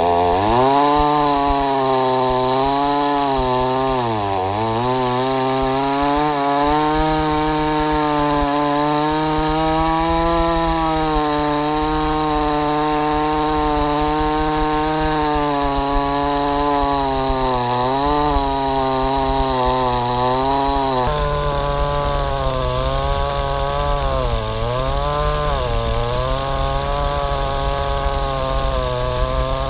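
A 5200-type 52cc two-stroke chainsaw runs at high revs while ripping lengthwise through wood. Its pitch sags several times as the chain bogs under load, deepest about four seconds in.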